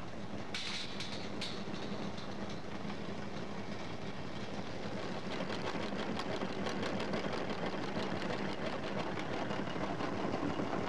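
Felt-making textile machinery processing fibres from old clothes, running with a steady mechanical rattle and a fast run of clicks that grows a little louder about halfway through.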